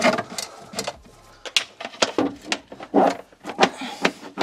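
Green-and-yellow earth cable being pulled hand over hand out through a cupboard, a quick irregular run of scraping swishes and knocks, about two or three a second.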